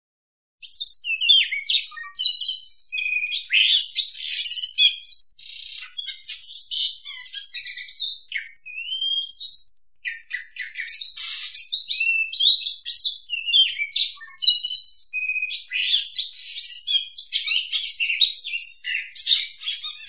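Oriental magpie-robin singing a fast, varied run of high whistles and chattering notes, with a brief pause about ten seconds in.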